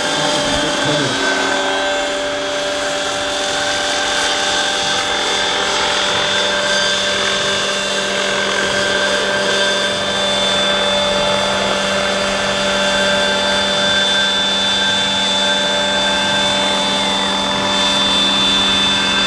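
Electric motor and rotors of a large model Eurocopter EC 120 RC helicopter in low, slow flight: a steady, even whine with a rotor hum that holds at one pitch throughout.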